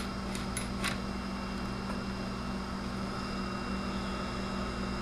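Electric motor of a Tecomec Jolly Evo chainsaw chain grinder, with its grinding wheel spinning, running with a steady hum and a faint high whine. There are a few short ticks in the first second.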